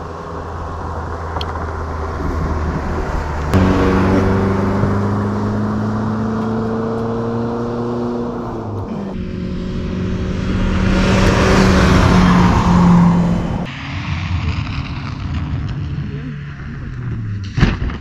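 A motor vehicle's engine running steadily, heard across several shots cut together, with a car passing by, loudest about 11 to 13 seconds in.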